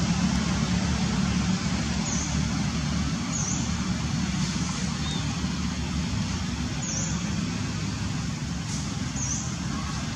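Steady background noise, a low rumble with hiss and no distinct events, easing slightly in loudness.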